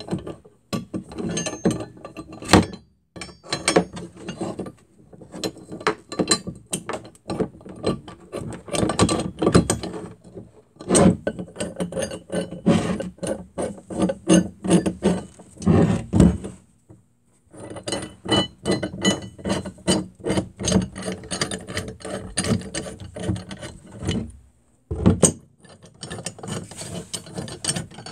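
The adjusting nut of a restored 90-year-old Walworth Stillson pipe wrench, spun by hand to run the hook jaw in and out, giving fast runs of metal clicks and rattles. The runs pause briefly twice, about two-thirds and seven-eighths of the way through.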